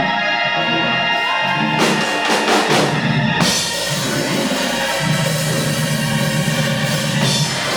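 Live church music: held chords with a drum kit playing along. The drums come in about two seconds in.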